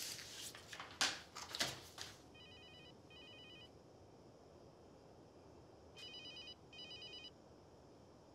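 Mobile phone ringing with an electronic trilling ring: two short trills about two seconds in, then two louder trills about six seconds in. Before the ringing, a few sharp knocks and rustles in the first two seconds are louder than the ring.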